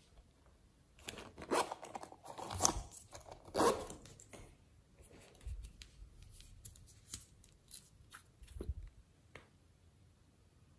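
Hands handling small hard plastic containers, a pineapple-shaped container and a nail polish bottle: a dense run of rasping plastic scrapes and clicks in the first few seconds, then scattered lighter clicks and taps.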